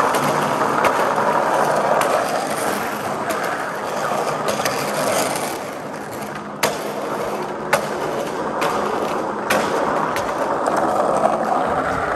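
Skateboard wheels rolling over a rough concrete deck, a continuous gritty rolling noise with sharp clicks about once a second.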